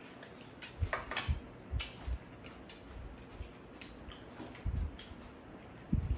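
Chopsticks and spoons clicking lightly against bowls, a few scattered clicks and soft knocks, with the chewing and eating noises of two people having cucumber cold soup.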